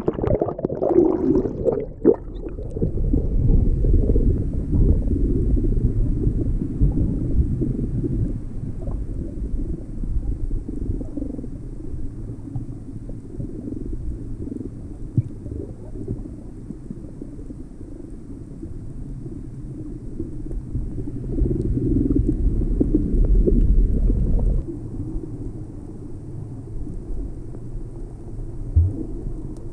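Underwater sound through an action camera's waterproof housing: the camera plunges under the surface at the start, then a steady, muffled low rumble of moving water as the swimmer paddles along.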